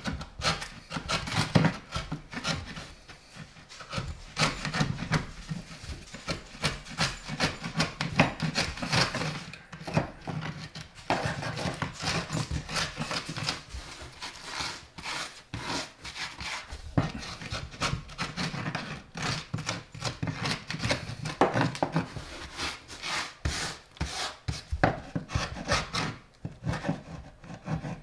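Wood chisel scraping and paring high spots off a bare particleboard countertop, in rapid, uneven strokes with short pauses.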